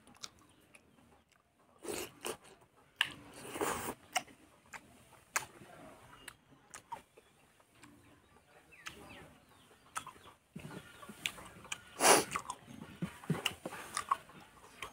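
A person chewing and biting close to the microphone: irregular wet smacks and crunches with short clicks between them, as mouthfuls of fatty pork, rice and raw onion are eaten.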